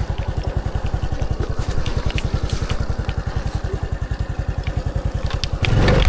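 Motorcycle engine idling with a steady, rapid, even beat, which grows louder and rougher near the end.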